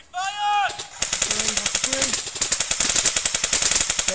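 Airsoft rifles firing on full auto: a fast, continuous rattle of shots that starts about a second in, after a short shout.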